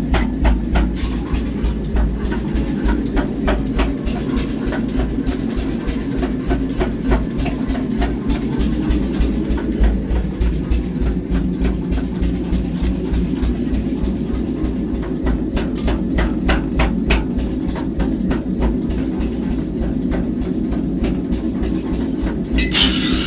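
Workshop machinery running with a steady low hum, overlaid by rapid, irregular clicking and knocking throughout. Near the end a hissing sound joins in.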